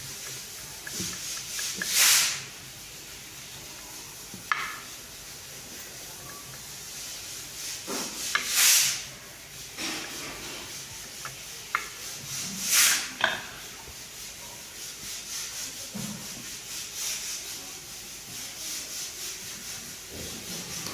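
Washing machine running, with a steady hiss and wet laundry rubbing and swishing in the drum. Three louder swishes come about 2, 8.5 and 13 seconds in.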